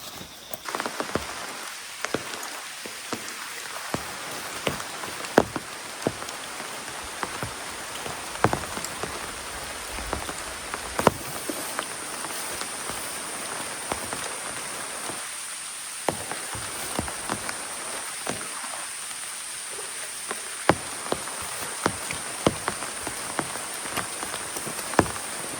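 Steady rain falling, with many sharp, loud drops striking close by.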